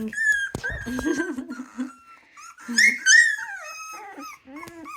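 Three-week-old Miniature Australian Shepherd puppies squeaking and whining in short, high, wavering cries, loudest about three seconds in. A couple of soft bumps come about half a second in.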